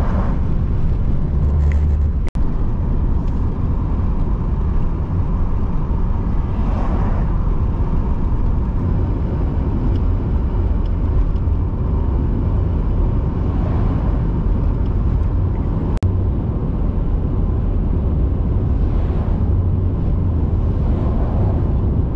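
Steady road and engine noise inside a moving car's cabin at highway speed, with a heavy low rumble. Oncoming semi-trailer trucks pass with a rush of noise that swells and fades, once right at the start and several more times after. The sound briefly cuts out twice.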